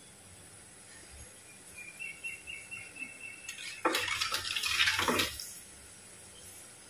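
A perforated spatula stirring fenugreek seeds in hot oil in a clay pot, scraping the pot and sizzling for about a second and a half a little past the middle.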